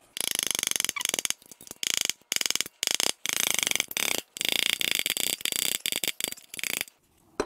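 Ratchet wrench clicking in repeated bursts of fast clicks with short pauses between, backing out a connecting-rod cap bolt so that it pushes the rod and piston up the cylinder bore.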